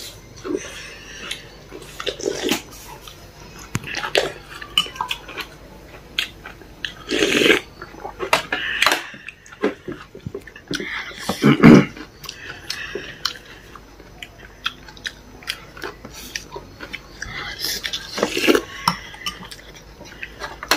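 A person eating a meal of pork and chili: chewing and mouth sounds with many short clicks of a utensil against a dish. The loudest knocks come about seven and twelve seconds in.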